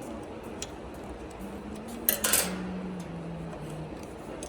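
Small metal parts and screws clinking as they are handled, with a short cluster of sharp clinks about two seconds in.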